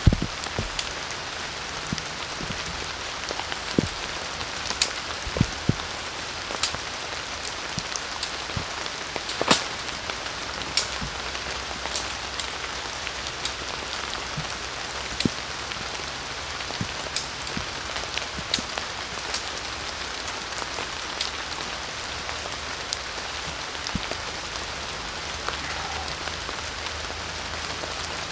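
Steady rain falling in a forest, with scattered louder individual drops striking close by.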